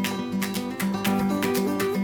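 Background music led by a plucked acoustic guitar, with a steady beat of about four to five strokes a second.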